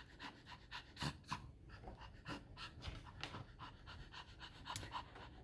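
Small Poodle/Bichon mix dog panting faintly, the panting that the groomer takes as a sign of her being a little nervous.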